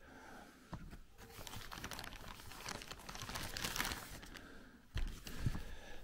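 Plastic carrier bag crinkling and rustling as books are handled inside it and taken out, with dense crackles through the middle and a soft, deeper bump about five seconds in.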